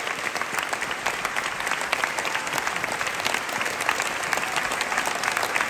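Theatre audience applauding: dense, continuous clapping from many hands, holding steady.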